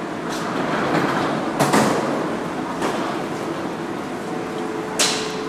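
Metro train rumbling in an underground station, with a clank about a second and a half in and a sharp knock near the end.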